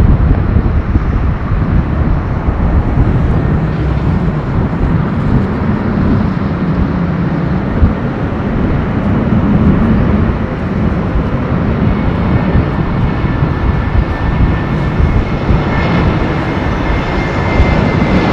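Boeing 777-300ER's twin GE90 jet engines running loud and steady as the airliner rolls along the runway, a deep rumble with a rushing roar on top. A thin steady whine comes in about two-thirds of the way through.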